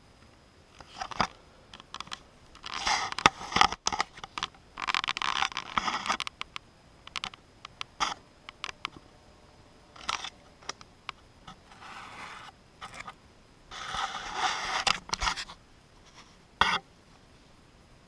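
Handling noise of a GoPro camera being moved about under a car: irregular bursts of scraping and rustling with a few sharp knocks, the last one near the end.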